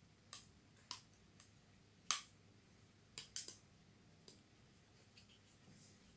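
Audio-Technica ATH-M40x headphones being handled: about eight sharp plastic clicks and taps, spaced irregularly, the two loudest near the middle.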